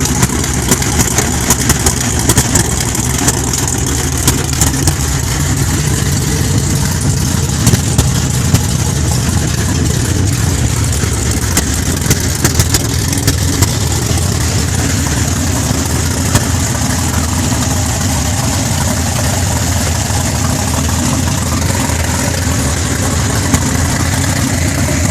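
Chevrolet Nova's engine idling steadily, with a low, even rumble and scattered sharp clicks and crackles over it.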